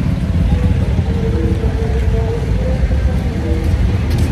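Street noise: a steady low rumble of road traffic.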